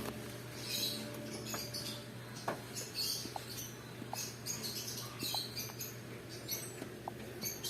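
Small birds chirping repeatedly in short high calls over a steady low hum.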